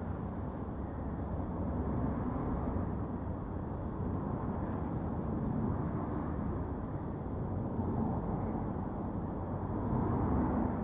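Outdoor garden ambience: a steady low rumble with a small bird chirping faintly, a short high chirp about twice a second.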